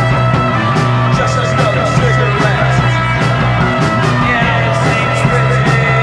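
Punk rock band recording playing: drums keep a regular beat under a steady, held bass note, with guitar and synth tones above.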